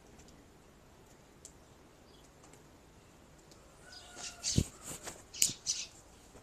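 A knife cutting green chillies: near silence for about four seconds, then a quick run of sharp cuts and scrapes over about two seconds, with one dull knock among them.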